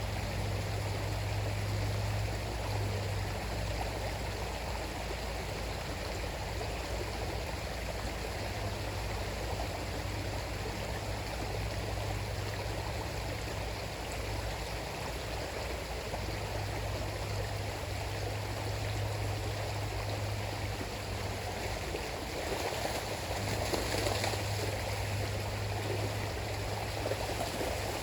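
River water flowing with a steady rush and a low rumble underneath; the rush swells briefly about three-quarters of the way through.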